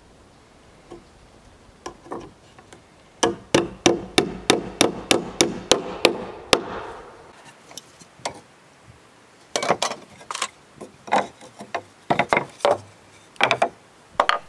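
Hammer driving nails into wooden railing balusters. A quick run of about a dozen strikes starts a few seconds in, followed by several shorter groups of strikes.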